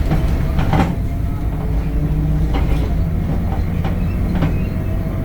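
Temsa Avenue LF 12 city bus in motion: its DAF Euro 5 diesel engine and running gear give a steady low rumble with a faint steady whine, and the body knocks and rattles several times.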